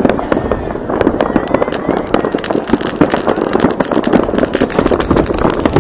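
Many fireworks and firecrackers going off at once across a city: a dense, unbroken barrage of pops and crackles, thickening into rapid crackling about halfway through.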